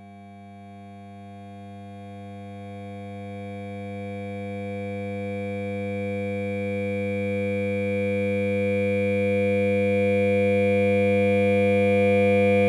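Synthesized drone of several steady held tones, with no change in pitch, swelling slowly and evenly louder throughout.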